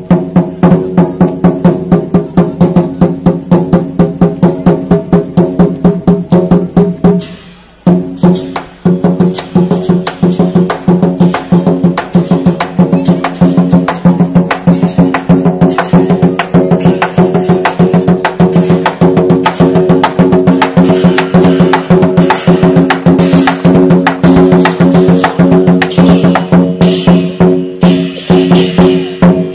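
Chinese lion dance drum beaten in a fast, steady rhythm of several strokes a second, with a brief break about eight seconds in.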